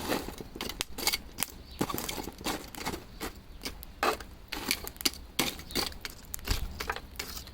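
Pieces of charcoal clinking and clattering irregularly as they are moved and stacked on the hot coals in a grill.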